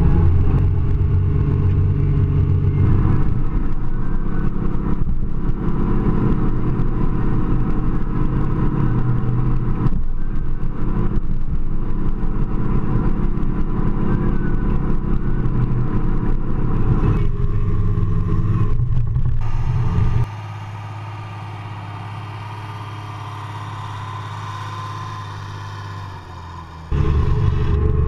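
Ford TW-25 tractor's six-cylinder turbo diesel engine running steadily under load while pulling a plough. About twenty seconds in the sound drops to a quieter, steadier hum for several seconds, then comes back loud near the end.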